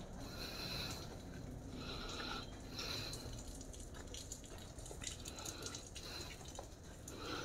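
Faint ambience of a wet street just after rain: light water dripping over low background noise, with a few soft clicks.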